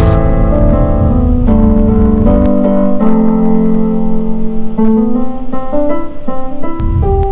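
Electric piano playing instrumental music: sustained chords at first, then a run of quicker, shorter notes from about five seconds in.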